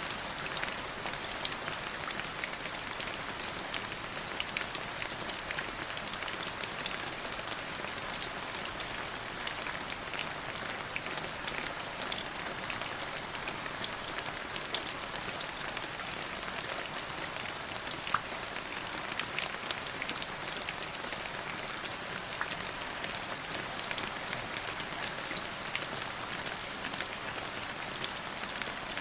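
Steady rain falling on a surface: an even hiss with many distinct close drop hits scattered through it.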